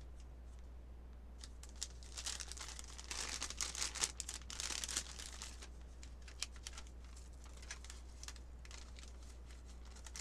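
Plastic packaging crinkling as an MRE meal pouch is pushed down into the flameless ration heater's plastic sleeve, in rustling bursts from about two to five seconds in, then scattered crackles.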